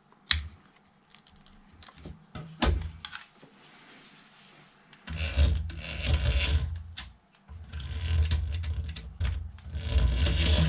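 A few clicks of the toy being handled, then from about halfway the small electric drive motor and plastic gearbox of a 27 MHz Radio FUN Hummer H2 toy RC car whirring in two long runs with a short stop between. The owner suspects its weak batteries for the poor running.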